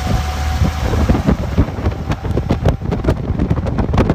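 Open 1925 Reo roadster on the move: the engine's low hum under heavy wind buffeting on the microphone, which turns choppier and gustier about a second and a half in.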